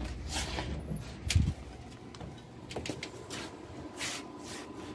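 A door being opened and pushed shut: a high, thin squeak for about a second with a dull thud partway through, then a few light knocks and rustles.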